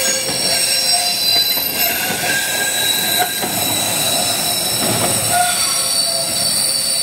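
Freight train wagons rolling past close by, their steel wheels squealing in several steady high tones over the low rumble and clatter of the running gear.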